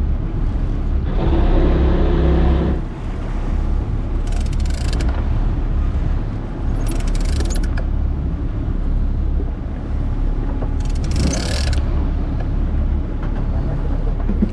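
A sport-fishing boat's engines running with a steady low rumble. The rumble swells louder for about two seconds near the start, and there are short hissing rushes every few seconds.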